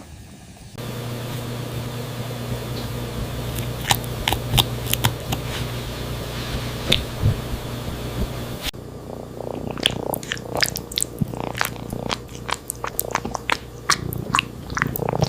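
A steady low hum with scattered clicks, then from about nine seconds in a cat chewing and biting food in quick, irregular, wet clicks.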